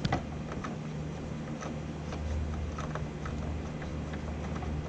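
Faint, scattered small clicks as a screw is turned out of a UPS's plastic casing, over a steady low hum.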